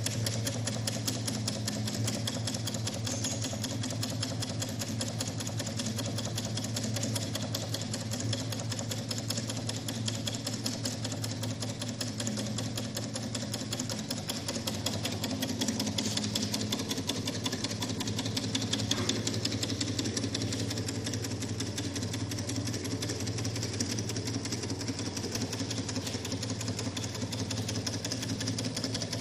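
Small home-built Stirling engine running steadily on the heat of a spirit-lamp flame, its moving parts making a fast, even mechanical clatter over a steady low hum.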